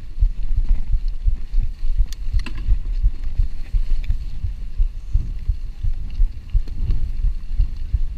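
Wind and ride vibration on an action camera's microphone while a mountain bike rides fast over rough grass: a constant low rumble with irregular knocks and thumps, and a few sharp clicks about two seconds in.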